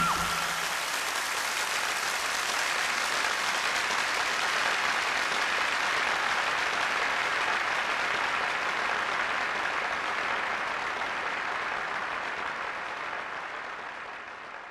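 Audience applauding, a dense steady clapping that fades out near the end. The last note of the music stops about half a second in.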